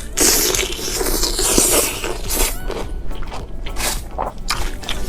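Close-miked eating sounds: a person chewing and crunching a mouthful of food, with irregular crackly noises.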